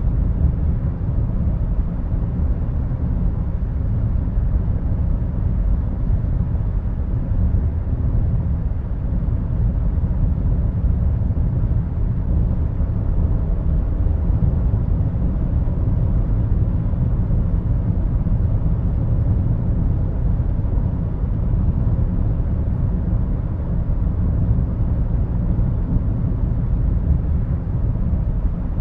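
Steady deep rumbling drone, a starship engine-hum sound effect.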